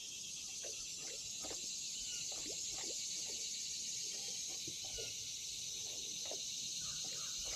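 Steady chorus of insects, a high, even shrill drone, with scattered faint short chirps and ticks over it.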